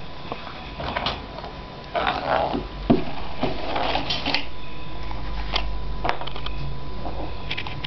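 Irregular light taps, clicks and brief rustles, a few clusters of them, over a faint steady hum.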